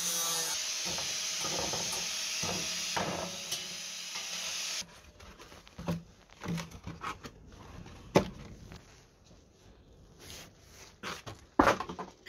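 Electric angle grinder running and cutting sheet steel, a steady hiss that stops abruptly about five seconds in. Then scattered light knocks and rustles of cardboard pieces being handled on a wooden table.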